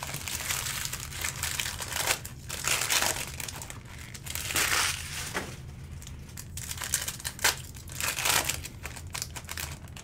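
Trading-card pack wrappers crinkling and tearing as packs are ripped open and handled, in irregular rustling bursts.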